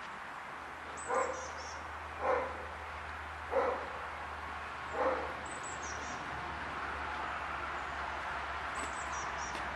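A dog barks four times, a second or so apart, in the first half, then stops.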